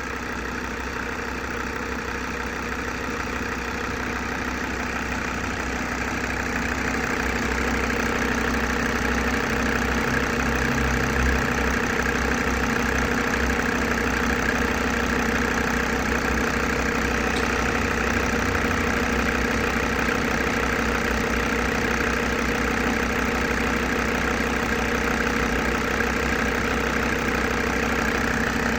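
Mercedes-Benz OM605 five-cylinder diesel idling steadily while warming up from a cold start, getting louder about seven seconds in.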